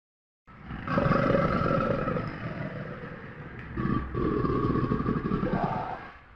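Large crocodile roaring, deep and rough: two long roars, the first starting about half a second in and the second just before the four-second mark, fading near the end.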